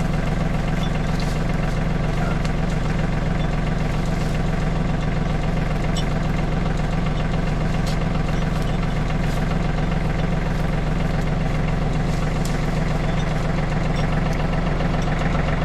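Small utility vehicle's engine idling steadily, with a few light clicks above it.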